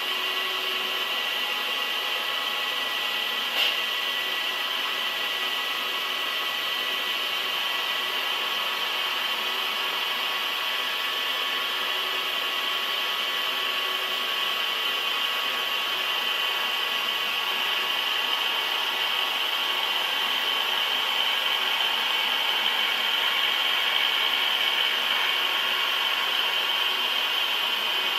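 Machine tool cutting metal: a steady cutting noise with a high whine, a single click about three and a half seconds in, growing slightly louder in the second half.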